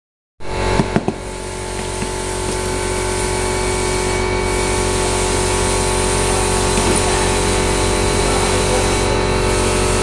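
A motor running with a steady hum, with a couple of sharp clicks about a second in.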